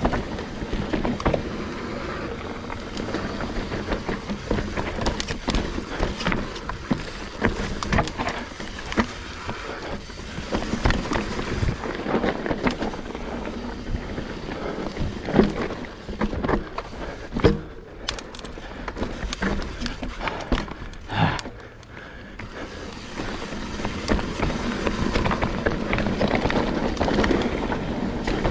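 Trek Slash 9.8 full-suspension mountain bike ridden along a rough dirt trail: a steady noisy rumble of tyres on dirt with a constant clatter of knocks and rattles as it runs over roots and rocks, and a few harder hits past the middle.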